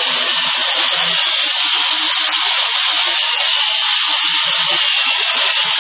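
Large toy remote-control helicopter with a built-in gyro in flight, its electric motor and spinning rotors giving a steady, high-pitched buzz.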